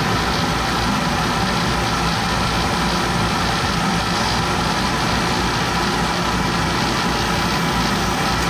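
Laser cutter running as it cuts half-inch acrylic sheet: a steady, unbroken machine drone.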